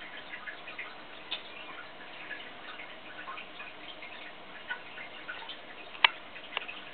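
Aquarium water dripping and trickling: many small irregular drips and ticks over a faint steady hiss, with one sharper click about six seconds in.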